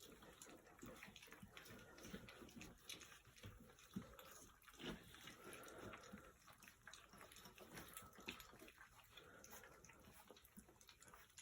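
Faint wet lapping, smacking and clicking of puppies eating a soft mash of goat's milk, water and puppy food, in small irregular sounds.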